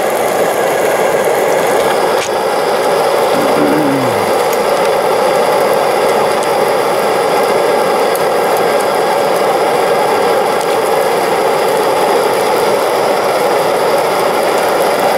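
MSR Dragonfly liquid-fuel camp stove burning steadily at full flame under a frying pan, an even rushing roar.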